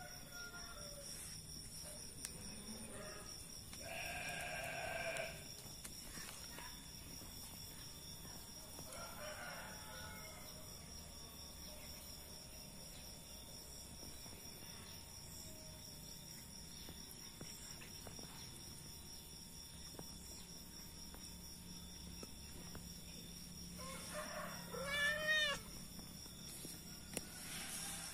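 Hungry cat meowing: one drawn-out meow about four seconds in, fainter calls around ten seconds, and a quick run of short rising-and-falling mews near the end.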